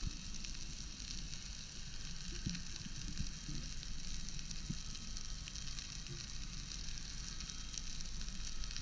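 Underwater reef ambience: a steady crackling fizz with scattered faint clicks, the crackle of a rocky reef heard underwater. A few soft low knocks come in the middle.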